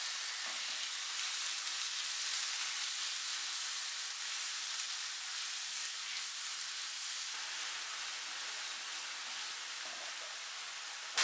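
Chicken pieces frying in oil with onion and garlic in a nonstick pan, a steady sizzle.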